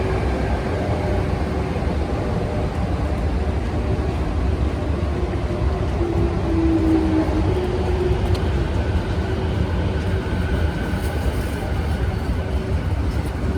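A train of 205-series cars with an EF81 electric locomotive moving along the track with a steady rumble. Faint held ringing tones run over it, and one is louder for about a second midway.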